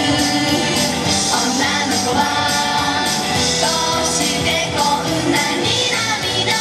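Upbeat J-pop idol song played through a PA speaker, with female vocals sung over a recorded backing track.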